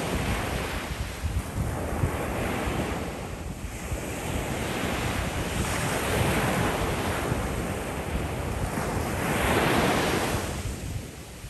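Ocean surf breaking and washing onto the shore, swelling louder and easing off every few seconds, with wind rumbling on the microphone. The last swell, near the end, dies away.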